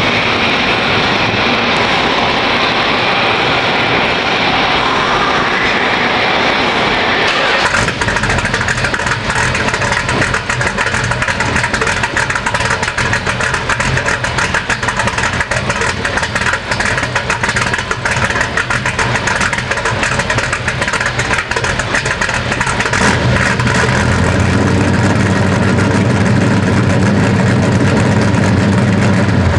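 A 1965 Dodge Coronet's 440 stroker V8 with a Racer Brown cam and Doug's headers being cranked; it fires about seven and a half seconds in and settles into a rapid run of exhaust pulses. From about twenty-three seconds in the exhaust note gets deeper and louder.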